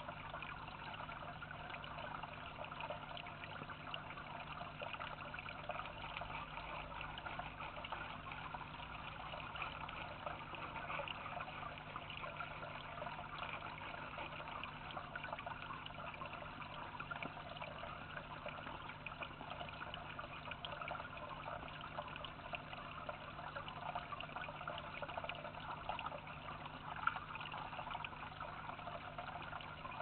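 Small garden stone-cascade water feature trickling steadily into a dish, with a faint steady low hum underneath. One brief tick near the end.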